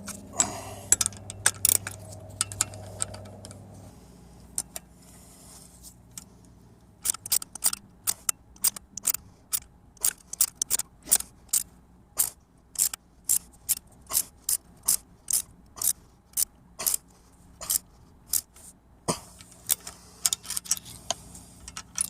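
Hand ratchet wrench clicking as a strut nut is tightened: a long, even run of sharp clicks, about two a second, for around ten seconds. A few scattered metal clicks and knocks come before it.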